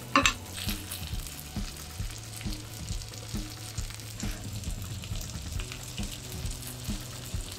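Sea bream fillet sizzling in foaming butter in a frying pan, with a metal spoon clicking and scraping against the pan as the butter is spooned over the fish; one louder clink about a quarter-second in. A steady low hum sits underneath.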